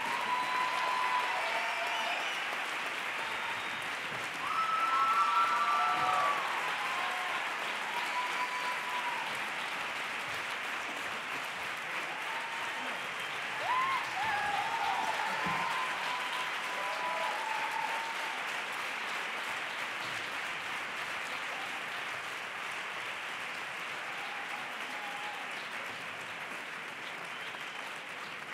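Theatre audience applauding steadily, with a few voices calling out above the clapping about five seconds in and again about fourteen seconds in. The applause slowly fades toward the end.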